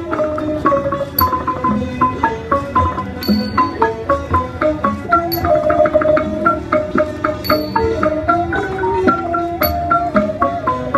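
Thai khrueang sai string ensemble playing: bowed fiddles and a khlui bamboo flute carry the melody over quick zither notes, with a small cymbal stroke ringing about every two seconds.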